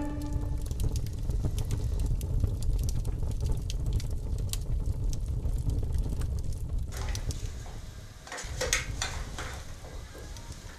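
A steady low rumble with scattered faint crackles and clicks. About seven seconds in, a short stretch of rustling and light clatter as chopped vegetables are mixed in a plastic basin.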